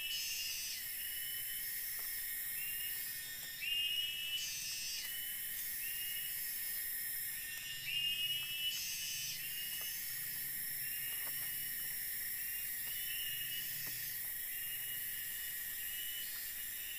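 Forest insects droning in a steady high-pitched chorus, with a rising trilled call repeating every few seconds and three louder calls about four seconds apart.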